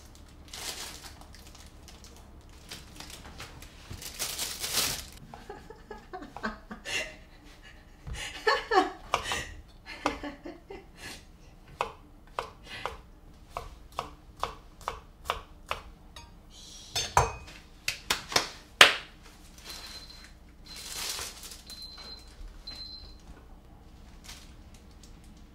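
Kitchen knife chopping king oyster mushrooms on a cutting board, steady strokes about two a second, amid the clatter of pans and utensils. A few louder knocks follow, then several short high beeps near the end.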